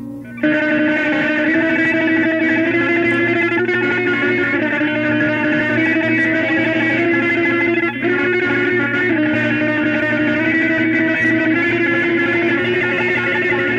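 Music led by guitars, coming in loudly about half a second in after a quieter passage, with a brief drop around the middle.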